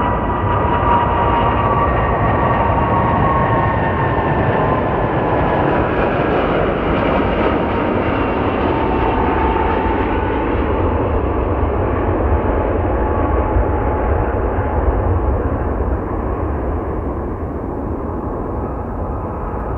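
Jet engines of a Boeing 757 airliner on final approach and landing: a steady rumble with a high whine that slowly falls in pitch as the plane passes. The rumble eases a little after touchdown as it rolls out.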